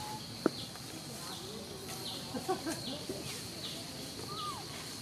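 Outdoor animal sounds: a high insect-like buzz that dips about once a second, short squeaky animal calls clustered around the middle and again near the end, and one sharp crack about half a second in.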